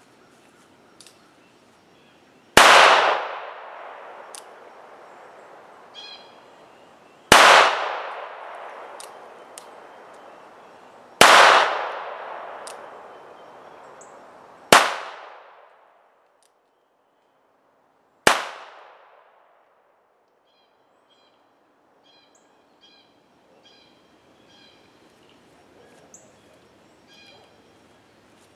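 Five gunshots from a North American Arms Black Widow mini revolver firing .22 Long Rifle through its conversion cylinder, spaced about four seconds apart, each a sharp crack trailing off in a long echo. Faint small clicks come between the shots.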